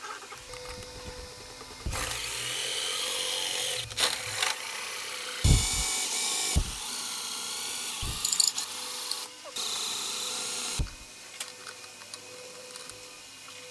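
A power tool working wood in three runs of one to two seconds each, with a few thumps between them.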